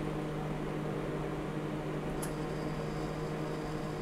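Aftron manual-dial microwave oven running, a steady hum with the turntable turning, as it heats a cup of milk. A faint click about halfway through.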